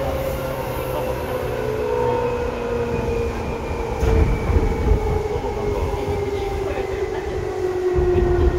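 Seibu 2000 series electric train, heard from inside the car above the line breaker, running with a loud low rumble. Its motor and gear whine falls slowly and steadily in pitch throughout, with a few knocks from the running gear about four and five seconds in.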